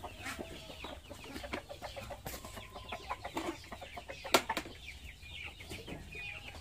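Chickens clucking while they feed, a run of many short calls with scattered light clicks, and one sharp knock about four seconds in.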